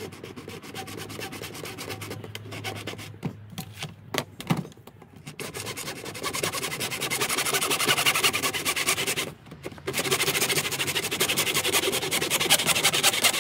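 Hand saw cutting through a plastic gutter downpipe in quick back-and-forth strokes. The strokes start hesitant with a few short stops, then run steady and louder from about five seconds in, with a brief pause just before ten seconds.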